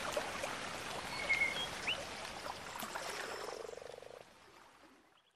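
Frogs croaking over a hissy outdoor ambience, with a few short high chirps and a rapid rattling croak about three and a half seconds in, fading out near the end.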